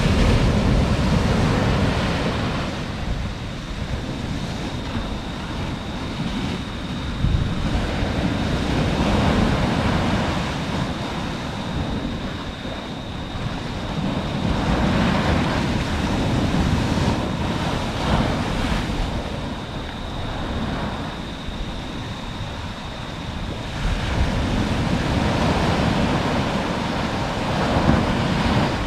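Surf breaking on a sandy beach and washing up the shore, swelling and ebbing every several seconds, with wind buffeting the microphone.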